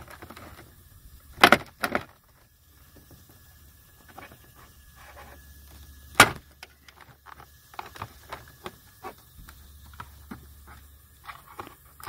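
Plastic retaining clips of a 2011 Buick Lucerne's door trim panel popping loose as a nylon pry tool is worked around the panel edge: two sharp pops about a second and a half in, another loud pop about six seconds in, then lighter clicks and rattles of the panel being worked.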